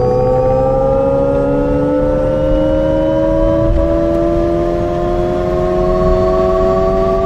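Alpine A290's synthesized driving sound, a layered electric tone rising slowly and steadily in pitch as the electric car accelerates.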